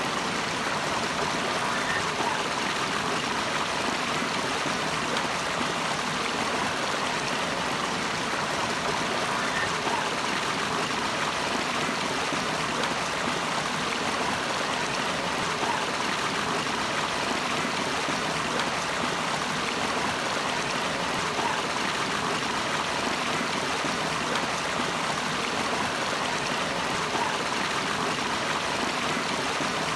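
Running water of a mountain stream, a steady rush with faint gurgles now and then.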